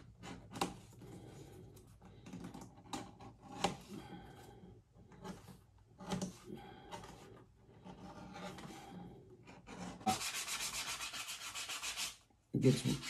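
Edge beveler scraping along the edge of thick double-layer bridle leather, shaving it in short, irregular strokes. About ten seconds in, a louder, faster rubbing runs for about two seconds.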